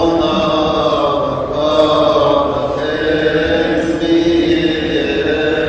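Coptic Orthodox liturgical chant: voices singing long held notes that slide slowly from pitch to pitch.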